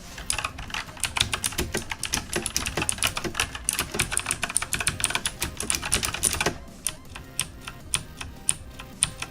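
E-Element Z77 mechanical keyboard with clicky blue switches being typed on at random, a fast, dense run of loud key clicks. About six and a half seconds in, the typing slows to sparser, quieter keystrokes.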